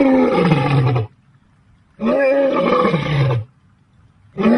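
Deep animal roars, three in a row about two seconds apart. Each lasts about a second and a half, starting level and sliding down in pitch. The third begins near the end.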